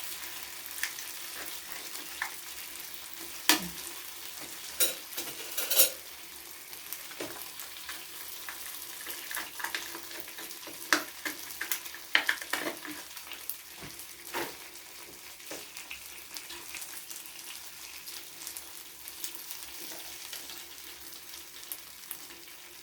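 A spoon stirring a thick peanut-butter sauce in a bowl, with irregular clinks and scrapes of the utensil against the bowl over a steady faint hiss.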